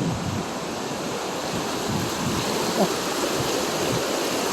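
Flood-swollen creek rushing steadily past a bridge, high fast water running at bridge level. Wind buffets the microphone.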